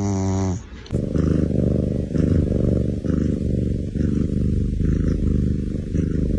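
A short pitched snort, then a loud, continuous rumbling snore that pulses about twice a second, with the rumble strongest at the low end.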